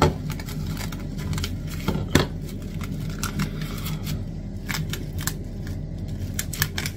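Plastic cling film crinkling and crackling as it is stretched and pressed down over a plate, in a run of irregular sharp clicks.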